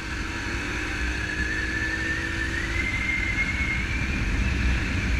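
Yamaha YB125 motorcycle riding along, with a steady low rumble of engine and wind. A thin high whine rises slowly in pitch across the whole stretch.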